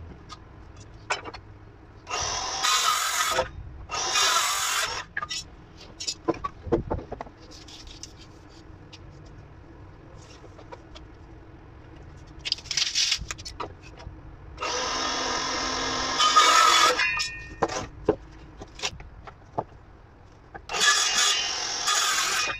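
Power drill driving screws into treated softwood timber in five runs of one to two seconds each, with knocks and clicks of the wood being handled between them.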